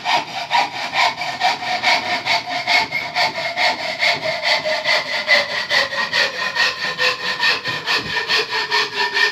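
Hacksaw cutting through a clamped piece of wood in steady, even back-and-forth strokes, trimming off an unwanted piece.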